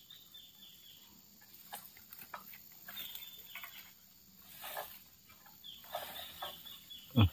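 A long oil-palm harvesting pole with a sickle working in a palm crown: scattered rustling and scraping of fronds, with one dull thump near the end.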